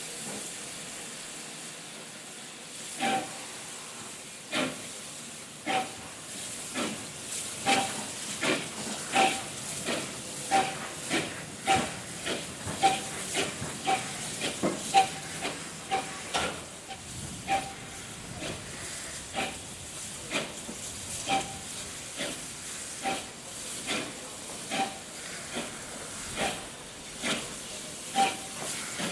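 Austerity 0-6-0 saddle-tank steam locomotive shunting at walking pace: irregular exhaust beats, a little over one a second, over a steady hiss of steam.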